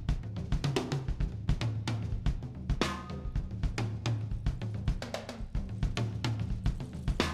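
Music with a driving drum-kit beat (snare, bass drum and cymbals) over a steady bass line.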